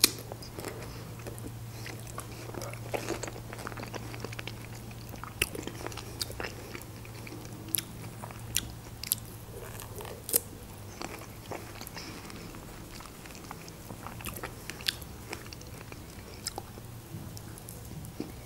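A person eating fresh strawberries up close: biting and chewing, with scattered wet mouth clicks and smacks. A low steady hum runs underneath.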